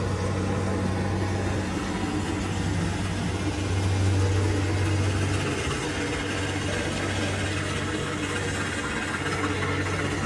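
Kubota DC60 rice combine harvester's diesel engine running steadily with a deep hum, growing a little louder about four seconds in, then settling back.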